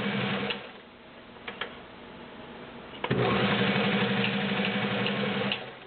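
All-metal Kenmore 1813 sewing machine with a 1.2 amp motor, stitching through three layers of garment leather. It runs steadily for about half a second and stops, with a couple of light clicks in the pause. About three seconds in it runs again for a couple of seconds before stopping near the end.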